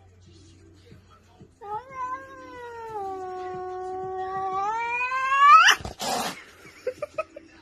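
Black-and-white domestic cat giving a long threat yowl at a cat statue. The yowl holds a steady pitch, then rises sharply into a loud screech, followed at once by a short noisy burst as the cat lunges.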